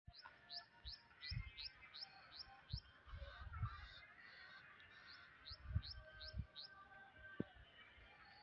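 A bird calling in two runs of short, high, falling notes, about three a second, with a pause of a couple of seconds between the runs. Scattered low thumps on the microphone and a single click near the end.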